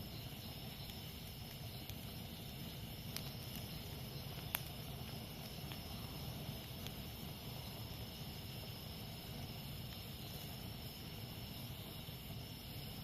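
Campfire burning with a steady low rush and a few sharp pops, the loudest about four and a half seconds in, over a steady chorus of jungle insects.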